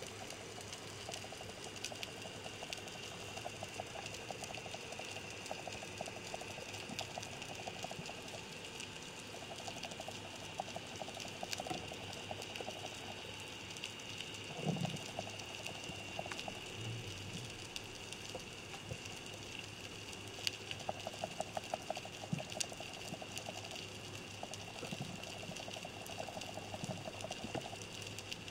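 Underwater ambience through a camera's waterproof housing: a faint hiss with a thin steady high tone, scattered sharp clicks, and stretches of fast fine ticking. A soft low thump comes about fifteen seconds in.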